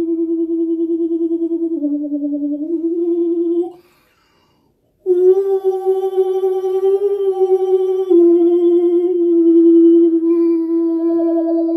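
A man's voice singing long, wordless held notes with vibrato. The pitch steps down and back up about two seconds in, breaks off for a breath just before the middle, returns on a higher held note, then settles back on the lower note.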